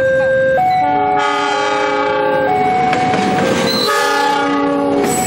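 Passing diesel locomotive sounding its multi-tone horn in several long chords from about a second in, over the rumble of the train, while a two-tone warning alarm keeps alternating between a low and a high tone about once a second. Near the end the horn stops and clatter from the passing train takes over.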